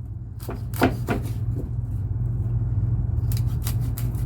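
Knife chopping a large sole into pieces on a board: a few sharp knocks about a second in and a quick cluster near the end, over a steady low hum.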